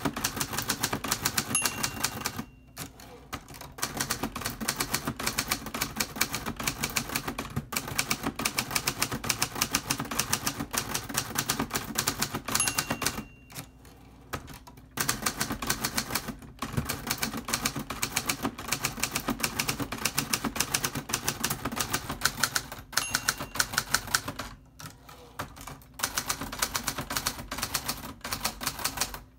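Hermes 3000 manual typewriter being typed on at a quick, even pace, the keys and typebars clacking several times a second. Three times a short ring of the margin bell comes near the end of a line, followed by a brief pause while the carriage is returned.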